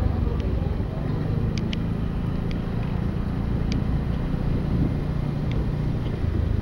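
Motorcycle engine running steadily, heard from the bike itself, with a few short high ticks.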